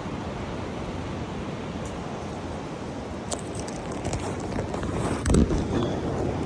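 Steady rumble of wind on the microphone over distant surf, with a few light clicks a few seconds in and a heavier thump about five seconds in.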